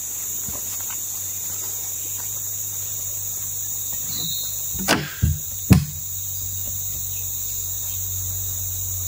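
Steady high-pitched chorus of insects, with three sharp knocks close together about five seconds in.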